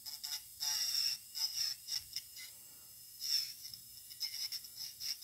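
Short, irregular scratchy strokes of a file working a hardened acrylic nail sculpture, with pauses between strokes.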